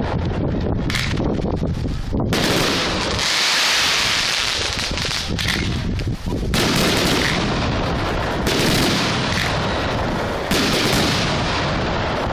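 Large fireworks display going off in a rapid, continuous barrage of overlapping bursts and reports, with several louder stretches where the firing thickens.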